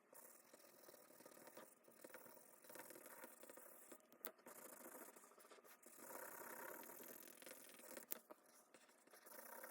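Quiet handling of toys or packaging: faint rattling and scraping, with a couple of sharp clicks.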